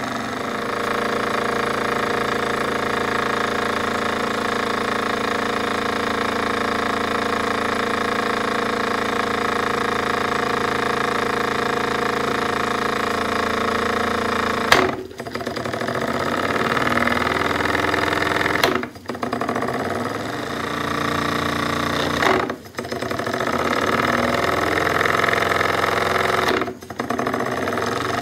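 Jensen 25G model steam engine running steadily, driving its small belt-driven generator. The sound drops out briefly four times in the second half, each time just after a short click.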